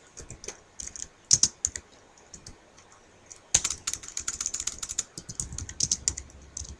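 Typing on a computer keyboard: a few scattered keystrokes at first, then a quicker, steadier run of typing from about halfway through.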